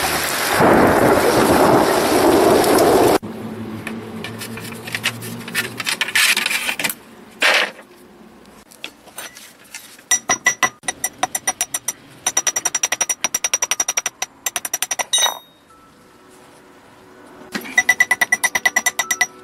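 A loud rushing noise that cuts off sharply about three seconds in, then a hammer striking a steel wire laid on a round steel block: quick runs of ringing metal-on-metal taps, several a second, with pauses between runs. The wire is being shaped into a bracket for holding a replacement roof tile.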